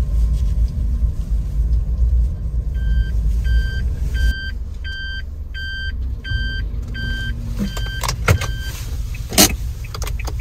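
A kei van's reverse-gear warning beeping in evenly spaced pips over the low rumble of its engine as it backs into a parking space. The beeping starts about three seconds in and stops about nine seconds in, followed by two sharp clicks.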